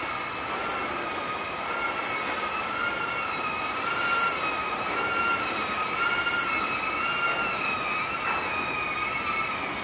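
Freight train cars rolling slowly past, their steel wheels squealing against the rail in several high tones held steady with a slight slow waver, over the rolling noise of the train.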